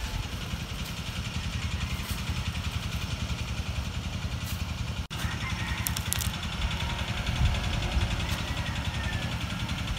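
Wind buffeting the microphone: an irregular low rumble with a faint hiss over it, broken by a brief dropout about halfway through.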